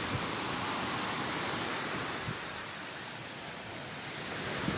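Steady rushing noise of sea surf and wind at the shore, dipping slightly in the middle and swelling again near the end.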